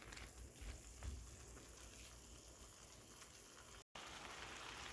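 Faint sizzle of lentils and corn cooking in a pan with a little water. The sound cuts out completely for an instant near the end.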